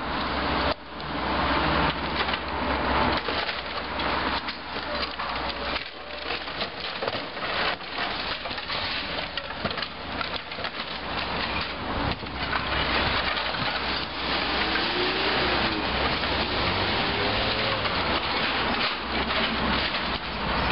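Demolition excavator pulling down a brick and timber building: irregular cracking, splintering and crunching of timber and masonry, over the steady low hum of the machine's engine. A car passes close by near the end.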